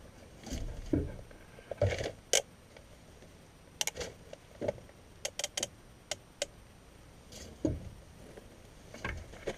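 Handling noise from hands working at a PVC furnace flue pipe joint: scattered sharp clicks and light knocks, with a quick run of clicks about four to six seconds in.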